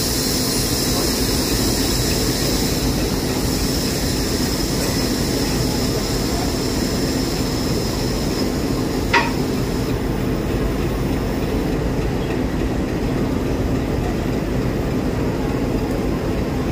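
Diesel locomotive engine idling close by, a steady low drone with a thin high whine that fades away around the middle. About nine seconds in there is one short sharp knock at the coupling between locomotive and coach.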